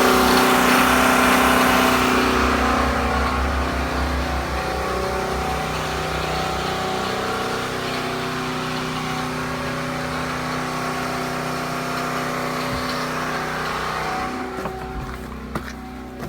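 Dual-fuel 5,500-watt portable generator's engine running steadily inside its steel enclosure, with hardly any vibration from the rack. It grows fainter over the first few seconds and again near the end, where a few sharp clicks come in.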